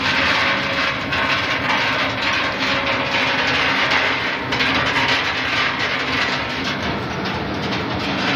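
Almond roasting machine running: a steady, dense clatter of almonds rattling along its metal wire-mesh conveyor belt, over a steady mechanical hum.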